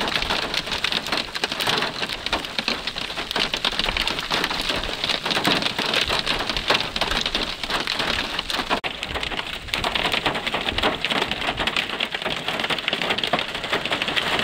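Hail mixed with heavy rain coming down hard: a dense, steady clatter of countless small impacts.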